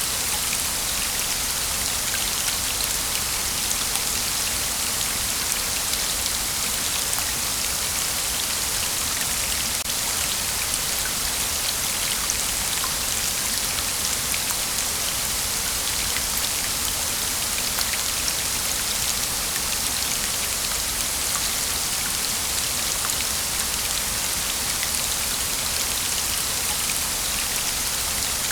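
Waterfall: a steady hiss of falling water with fine splashing droplets, strongest in the high range and unchanging throughout.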